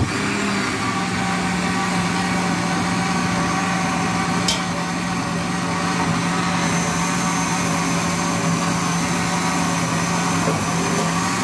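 Electric countertop blender running steadily, blending a thin milky drink, its motor hum holding one steady pitch.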